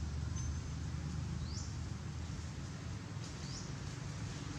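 A bird's short, high, rising chirp, repeated about every two seconds, over a steady low hum.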